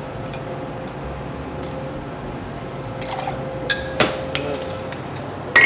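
Aperol poured from the bottle into a steel jigger and into a stainless steel cocktail shaker tin: a steady trickle of liquid, then a few light metallic clicks from about three seconds in.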